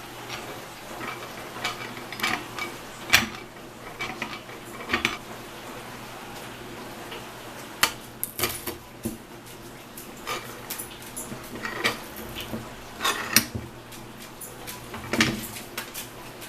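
Irregular sharp metallic clinks and knocks, a dozen or so scattered through, some ringing briefly: cast iron being handled and knocked together, most likely the restored nutcracker's parts.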